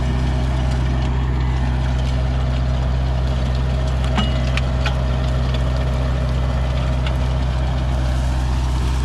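Case DX40 compact tractor's diesel engine running steadily while driving a rototiller, with a couple of brief clicks about four and five seconds in.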